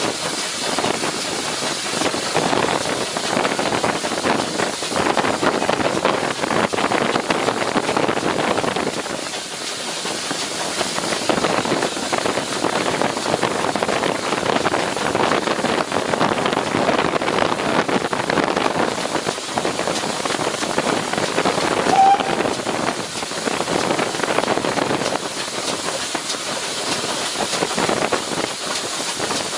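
GWR 1600-class 0-6-0 pannier tank steam locomotive with a steady hiss of steam and train noise. A brief high squeak about three-quarters of the way through.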